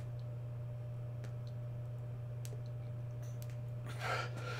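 A man drawing on a cigar, with a few faint lip smacks, then a soft breathy exhale of smoke about four seconds in, over a steady low hum.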